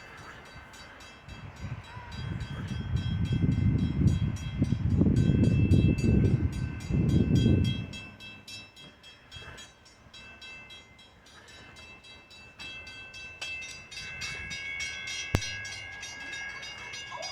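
Metra diesel commuter train arriving: a loud low rumble builds about two seconds in and passes by about eight seconds in. The rolling cars follow more quietly, with steady high-pitched tones and a regular ticking that grow louder near the end.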